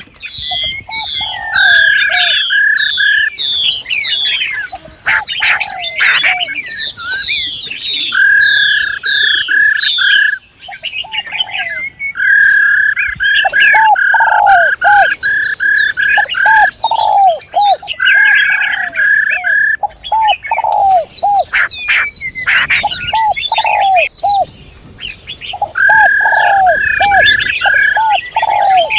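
Several birds calling over one another: dense high chirps and trills, runs of short repeated mid-pitched notes, and runs of lower repeated calls, briefly dropping off twice.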